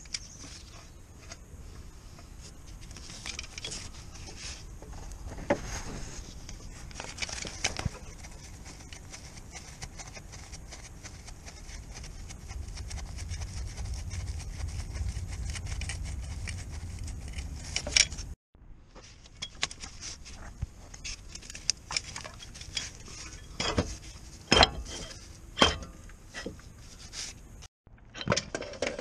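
Hand work under a car: scattered clicks, taps and metallic knocks of hand tools and fittings being handled and undone, over a low steady background rumble.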